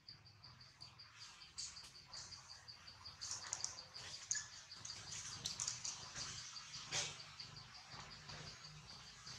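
An insect chirping steadily in a rapid, even pulse, about five pulses a second, with scattered soft clicks and crackles through the middle.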